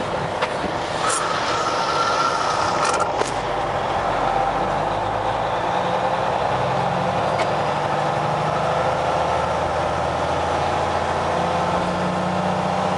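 Kenworth semi truck's diesel engine running steadily with tyre noise on a gravel road, heard from inside the cab. There are a couple of brief clicks about three seconds in.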